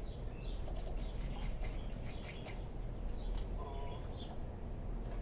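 Small birds chirping, with light clicks and rustling as a hard-plastic wicker bill spoiler is held and lined up against a car's rear hatch, over a steady low hum.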